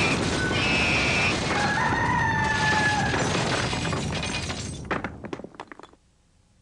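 A loud, noisy crash-like sound with a drawn-out call through it. It breaks into a few scattered sharp hits about five seconds in, then stops abruptly.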